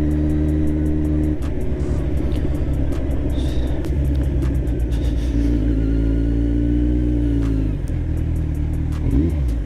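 Kawasaki Z1000's inline-four engine running under way through an aftermarket SC Project exhaust whose connecting pipes are not yet fitted. The engine note holds steady, changes about a second and a half in, then drops and climbs again near the end.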